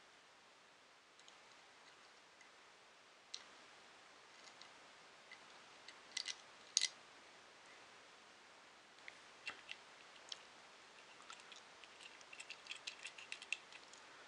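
Faint clicks and taps of small 3D-printer kit parts and screws being handled and fitted together by hand. There are two louder clicks about six and seven seconds in, and a quick run of light clicks near the end.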